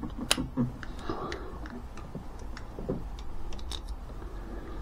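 Ratcheting wire crimper clicking as it clamps down on a connector: a sharp click about a third of a second in, then lighter clicks and tool-handling noises, over a low steady hum.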